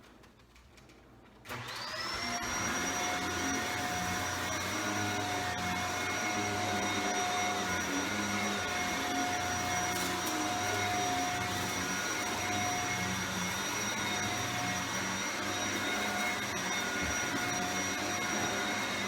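Shark Powered Lift-Away upright vacuum cleaner switched on about a second and a half in, its motor whine rising quickly to a steady pitch, then running steadily.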